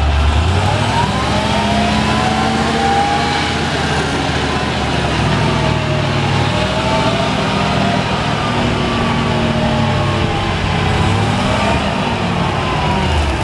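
Caterpillar T300 forklift's LPG-fuelled engine running as the truck drives and turns, its pitch rising and falling with the throttle.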